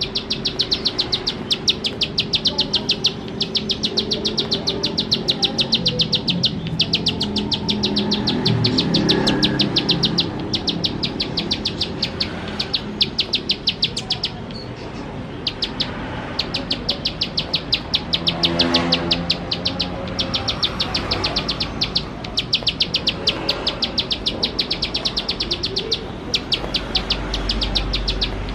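Plain prinia (ciblek sawah) singing its rapid-fire 'nembak' song: long runs of fast, dry ticking notes with short pauses between runs.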